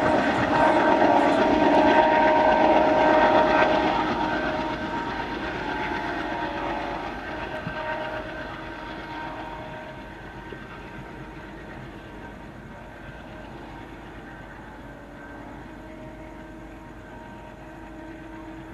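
A diesel-hauled passenger train running past on the rails, its coaches rattling, with a few steady high tones held over the first few seconds. The sound then fades away over the next several seconds as the train recedes, leaving only a faint distant rumble.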